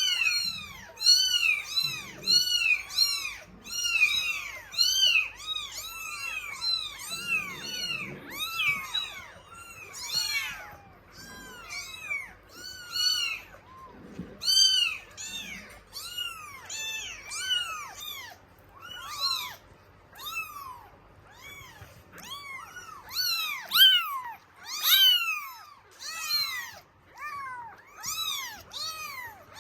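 Norwegian Forest Cat kittens meowing over and over, several at once in short high-pitched cries, clamouring for milk.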